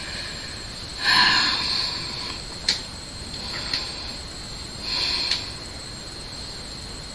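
A few sharp clicks, roughly a second apart, and two short breathy noises, one about a second in and one near five seconds, from a person handling things at a desk.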